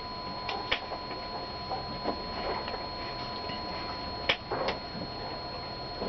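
Close-up crunches of someone chewing a crisp biscuit: a few sharp crisp clicks, a pair just after the start and another pair about four seconds in, over a steady background hiss with a faint high-pitched whine.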